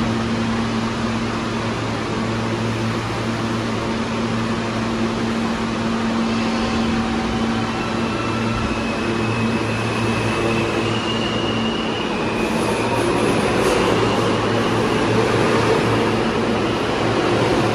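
New York City subway train approaching through the station, its rumble building over the second half, with faint high-pitched tones from about six seconds in. Under it is a steady low station hum.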